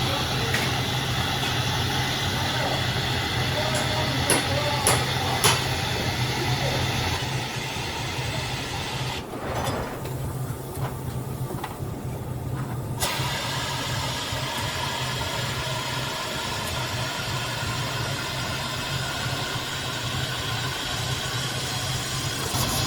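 Air-powered suction gun hissing steadily as it sucks water, with a low hum underneath for the first several seconds and a few sharp knocks early on. The hiss drops away for about three seconds midway, then comes back.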